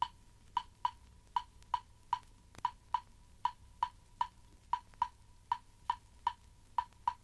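A lone wooden hand-percussion instrument struck alone in a repeating syncopated Latin rhythm, about two and a half sharp clicks a second.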